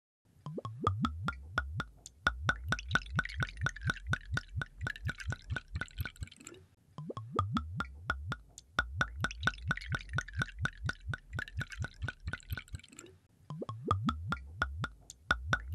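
Rhythmic water-drip sounds, quick plops at about five a second, in runs of about six seconds with brief breaks between.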